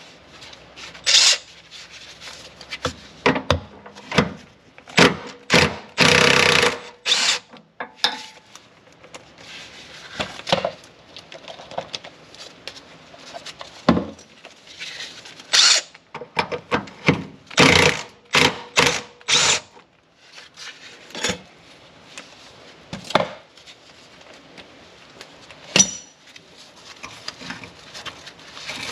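Cordless impact wrench run in a series of short bursts, loosening the 12 mm bolts of a rear sway bar bushing bracket, the longest burst about six seconds in. Metal clinks and handling noise come between the bursts.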